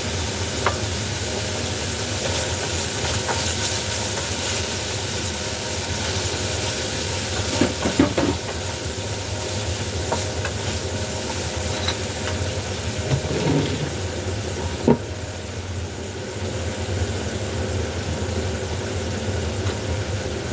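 Chopped tomatoes sizzling in a frying pan over a gas flame, stirred with a wooden spatula that knocks and scrapes against the pan now and then, most sharply about eight and fifteen seconds in.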